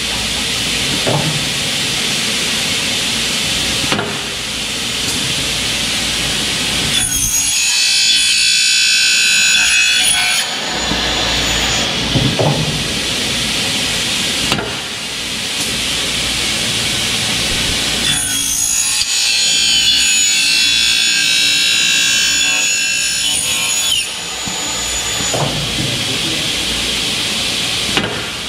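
Double-head aluminium cutting saw running with its blades spinning, making two cuts through 2.2 mm Xingfa aluminium profile. Each cut is a high ringing screech lasting three to six seconds. Between the cuts the blades spin freely, with a few light knocks.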